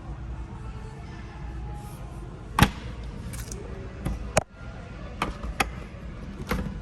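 A handful of sharp clicks and knocks, about six in all. The loudest comes about two and a half seconds in and the rest fall in the second half, over a low steady hum.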